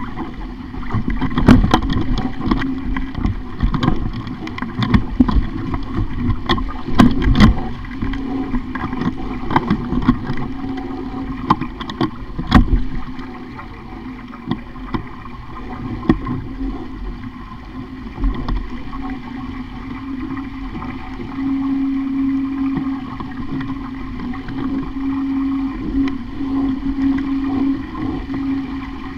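Sailing dinghy under way: a continuous wash of water with repeated sharp knocks and clatter, thickest in the first half. A steady low drone runs underneath and grows stronger in the last third.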